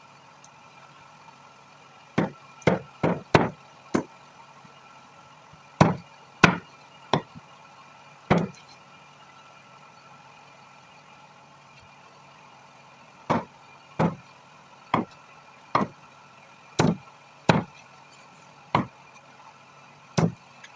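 A heavy knife chopping chicken on a chopping block: sharp single chops in quick runs of two to five, with a longer pause about halfway through.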